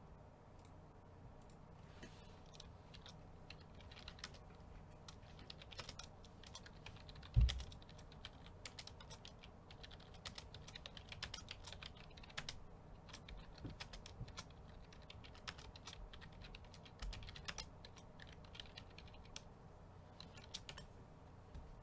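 Computer keyboard typing: faint, irregular keystroke clicks, with one louder dull thump about seven seconds in.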